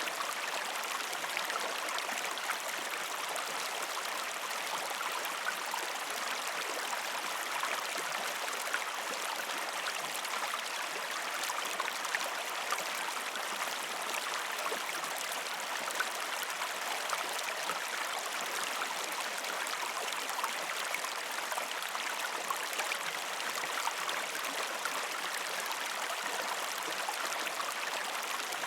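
Shallow stream water flowing steadily over rocks, an even rush with many small splashes and gurgles.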